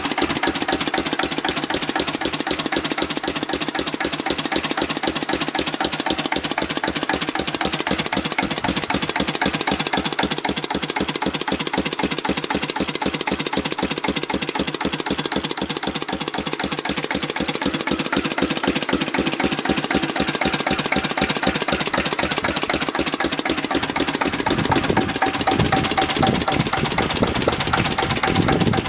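Lister CS stationary diesel engine running steadily with no load, a regular, rapid clatter.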